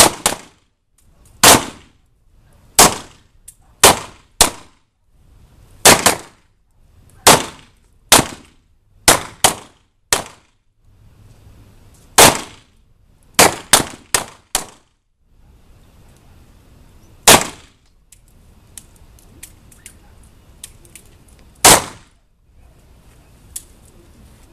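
Handgun shots from several shooters on a firing line, fired singly and unevenly, each with a short echo. The shots come every half second to second and a half at first, then thin out after about fifteen seconds, with faint clicks and a last shot near the end.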